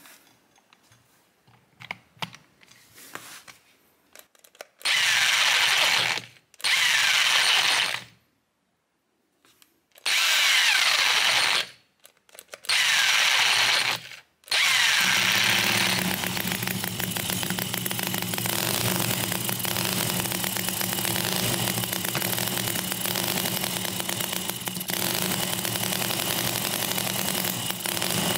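An electric handheld drill spins up four times in short bursts, cranking a miniature 45-degree V-twin engine through its starter shaft. On the last burst, about halfway through, the engine catches and runs on steadily by itself.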